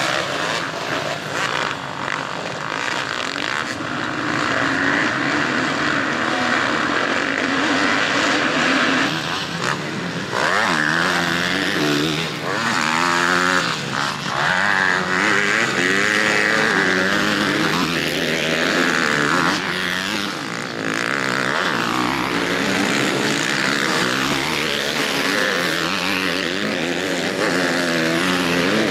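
Motocross bikes racing. At first a pack of many engines runs together; from about ten seconds in, single bikes rev up and down as they pass and accelerate.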